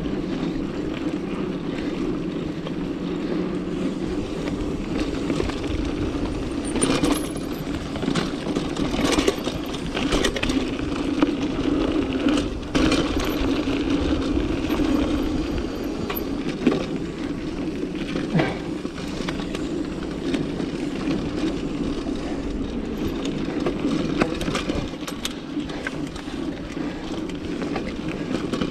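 Mountain bike ridden along a dirt trail: a steady rolling, rushing noise from the tyres, with scattered rattles and clacks from the chain and frame over bumps.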